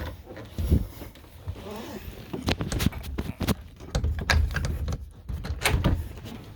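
Footsteps on a camper's floor: a string of uneven thuds and sharp knocks.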